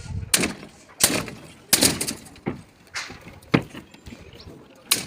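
Irregular series of sharp knocks and short scraping strokes, about one every half second to a second, from hand work on a building site.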